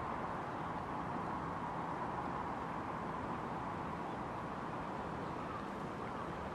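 Steady rushing outdoor background noise, with a crow starting to caw a couple of times near the end.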